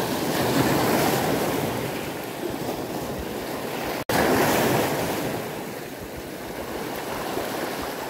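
Small sea waves breaking and washing over shoreline rocks, swelling louder twice, about a second in and again just after a brief dropout about four seconds in.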